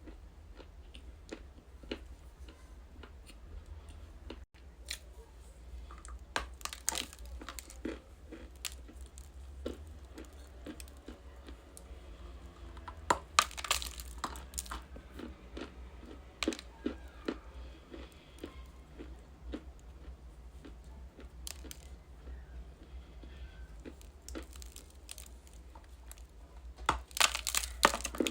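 Dry edible clay being bitten and chewed close to the microphone: sharp cracking crunches with softer crumbling between. Three loud clusters of bites stand out, the last near the end, over a faint steady low hum.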